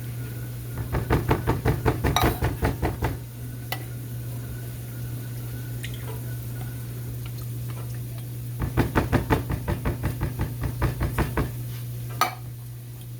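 Rubber spatula scraping the inside of metal soup cans in two runs of quick, regular strokes, the first about a second in and the second about nine seconds in, with a single sharp knock near the end. A steady low hum runs underneath.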